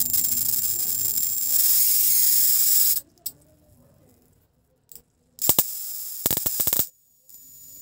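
High-voltage electric discharge hissing and crackling, with a thin high whine over the hiss. It cuts off abruptly after about three seconds, there are a couple of isolated snaps, and a second crackling burst of about a second and a half stops just as suddenly.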